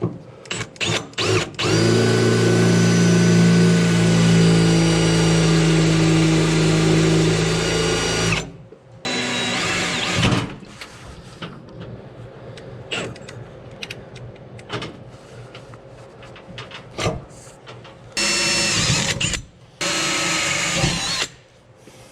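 Power drill boring holes into the van's body: one long run of about six seconds, then several short bursts, with clicks and handling noise between them.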